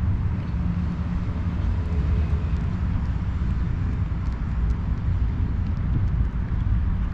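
Steady low outdoor rumble with a faint haze of background noise, unchanging throughout.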